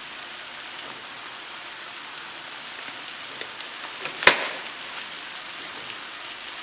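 Onion-and-tomato masala frying in a pan, a steady sizzling hiss. A single sharp clink about four seconds in.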